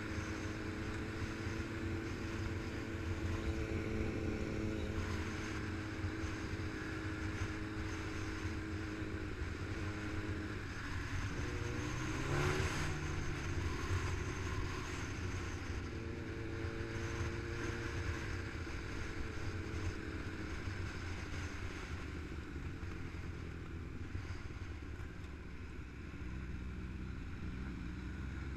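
Motorcycle engine running at a steady cruising speed, heard from on board with wind rushing over the microphone. The engine note dips briefly about halfway through, then settles lower near the end as the bike slows for a bend.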